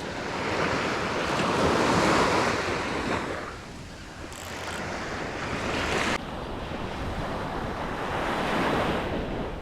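Ocean surf breaking and washing up the beach, with wind buffeting the microphone. The wash swells to its loudest about two seconds in, ebbs, then builds again, and the sound changes abruptly about six seconds in.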